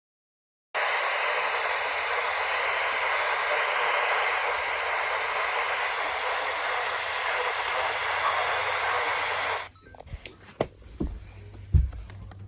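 Radio receiver static: a steady, loud hiss that starts abruptly and cuts off suddenly after about nine seconds, followed by a few scattered clicks and thumps.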